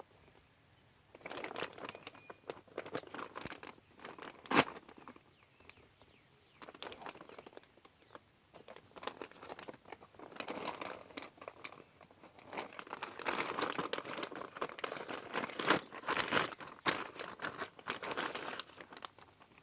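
Packaging crinkling and rustling in irregular spurts as the replacement ATV display unit is unwrapped, with scattered clicks and one sharp tap about four and a half seconds in.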